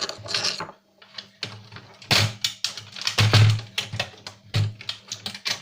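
Irregular clicking and rattling of small plastic and metal parts as a DVD player is taken apart by hand, with two louder scraping sounds about two and three and a half seconds in.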